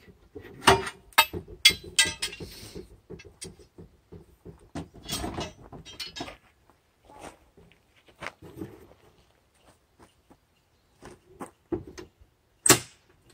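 Metal clanks, rattles and scrapes as the steel support arms of a pop-up camper's bed are taken apart, with one sharp knock near the end.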